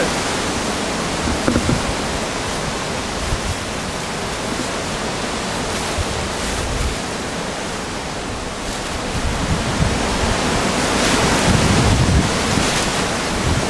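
Steady rushing noise of wind on the microphone, with low gusts that grow stronger in the second half, over the rustling of dry dead leaves and a plastic bin bag as leaves are tipped out and scattered.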